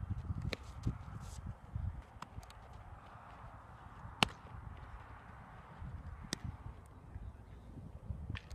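A baseball smacking into a leather fielder's glove about four seconds in, a single sharp crack and the loudest sound. A few fainter clicks come before and after it, over a low, uneven rumble.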